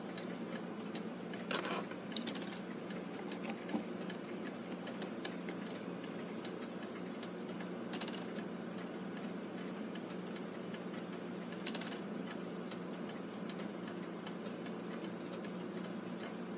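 Small clicks and taps of brass clock-movement parts being handled as the strike-train wheels are re-meshed, with a few louder metallic clinks, over a steady low hum.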